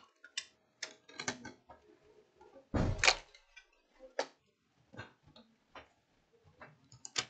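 Scattered clicks and knocks of a laptop motherboard and its metal chassis frame being handled and turned over, with a louder clatter about three seconds in.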